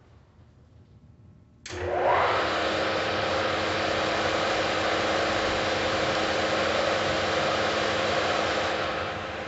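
Mori Seiki MS-1250G gap-bed engine lathe starting up: a couple of seconds in the spindle drive kicks in suddenly and rises briefly in pitch as it comes up to speed, then the motor and geared headstock run steadily. Near the end the level drops a little.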